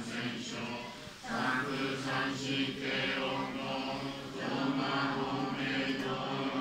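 Buddhist sutra chanting at a memorial service, held on a near-monotone, with a short breath pause about a second in.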